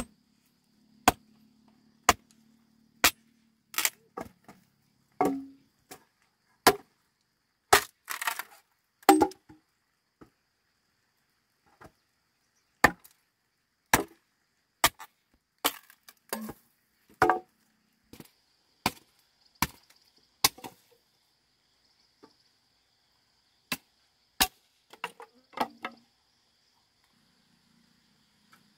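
A curved hooked blade chopping at a hand-held wooden pole: sharp single wooden chops at an uneven pace of about one a second, a couple dozen in all, stopping a few seconds before the end.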